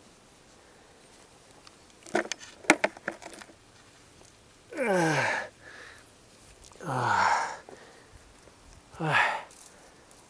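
A man coughing three times, each a hoarse burst falling in pitch. A few seconds before the coughs comes a quick cluster of sharp knocks.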